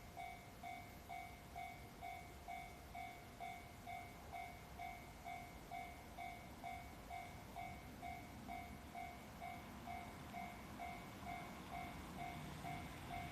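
Japanese railway level crossing warning bell ringing a steady ding-ding about twice a second, signalling an approaching train. A low rumble builds in the second half as the train draws near.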